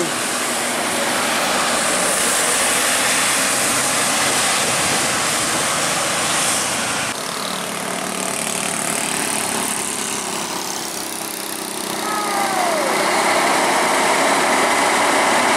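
Road traffic on a wet hill road: diesel trucks and motorcycles running past, with a steady hiss over the engines. The sound changes abruptly about seven seconds in.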